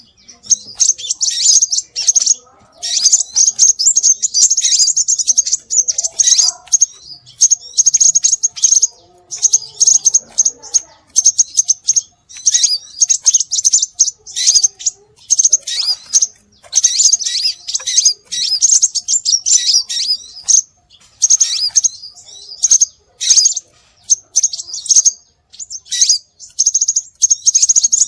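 Scarlet minivet song: rapid, high-pitched chirping in dense runs of a second or two, broken by short pauses and repeated again and again.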